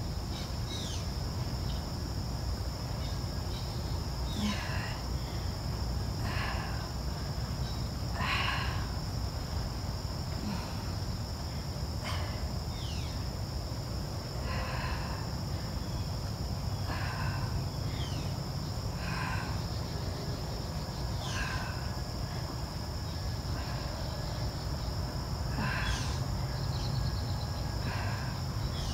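Steady high-pitched insect chirring, with a bird repeating short, slightly falling calls about every two seconds over a low steady hum.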